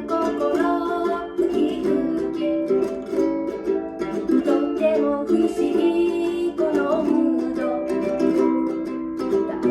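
Mini keyboards and a small-bodied mini guitar playing a rumba together, with bright plucked guitar strums over keyboard chords and melody.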